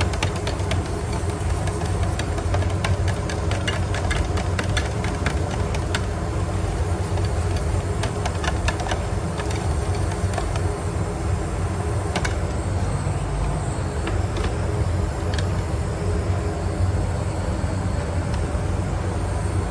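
A motor running with a steady low hum, with scattered light clicks and taps over the first half or so.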